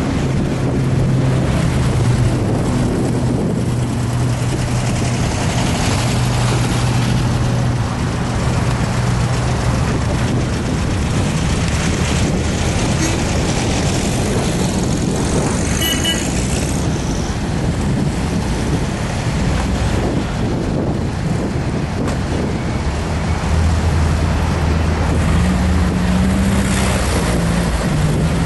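Old car's engine running while driving, a steady low note over road and wind noise; the engine note shifts up and down with speed changes near the end.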